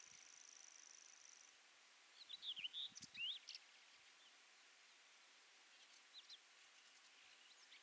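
Common whitethroat singing: one short, fast warbling phrase of rising and falling notes about two seconds in, a few faint notes later, and the start of another phrase near the end. A high, thin steady trill runs through the first second and a half.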